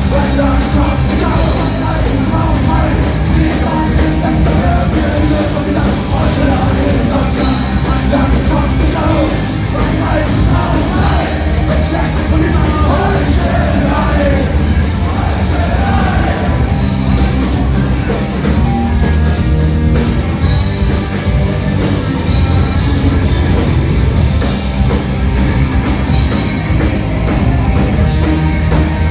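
Punk rock band playing live, loud and dense throughout, with shouted vocals.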